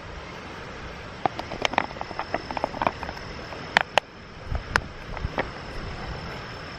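Steady rush of a mountain stream, with a run of light, sharp clicks and knocks from about a second in until about five and a half seconds in.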